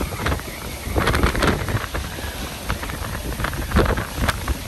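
Hurricane wind buffeting the microphone in uneven gusts, with heavy wind-driven rain sweeping across the pavement.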